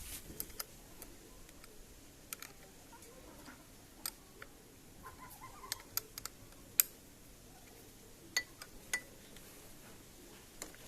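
Scattered light clicks and taps from hands working on parts, a dozen or so at uneven intervals, with one sharper click about two-thirds of the way through.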